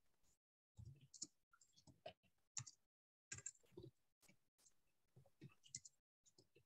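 Near silence with faint, irregular clicks.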